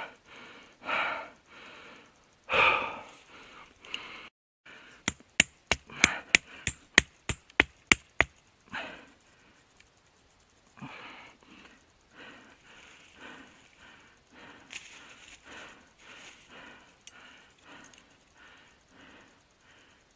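A man breathing heavily, out of breath from hard work. After a cut, a quick run of about a dozen sharp clicks comes over three seconds, and then softer breathing follows.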